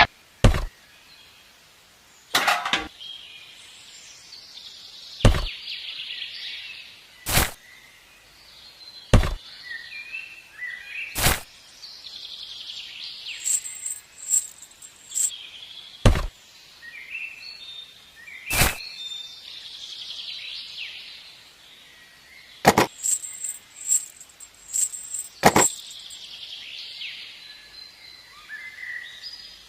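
Birds chirping and calling, with sharp clicks or knocks every second or two, some coming in quick clusters.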